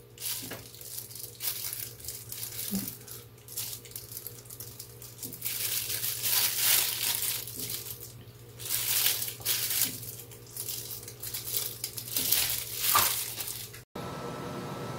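Disposable plastic food gloves crinkling and rustling in irregular bursts as hands handle and stuff slices of egg-coated fried tofu. Near the end the crinkling breaks off into a steady low hum.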